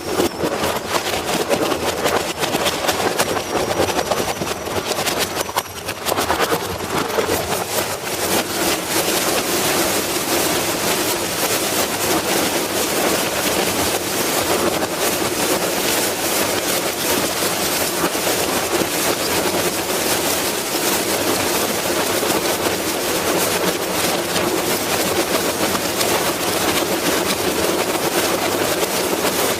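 A machine running steadily with a dense, noisy rattle. It is uneven for the first several seconds, with a brief dip, then settles to an even level.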